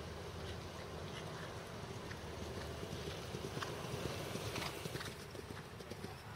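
Hoofbeats of a galloping eventing horse on turf. They grow louder as it passes close, loudest about four to five seconds in, then fade as it moves away.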